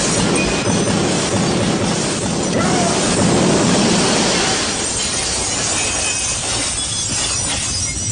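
Loud, continuous crashing noise like shattering glass and explosions, dense and unbroken, easing off a little about five seconds in.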